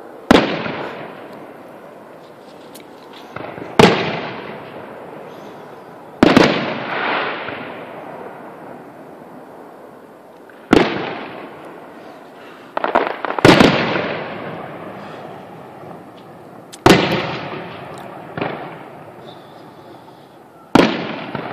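Aerial firework shells bursting in a display. There are about seven sharp booms a few seconds apart, with a couple of softer bangs between them, and each boom dies away in a long rolling echo.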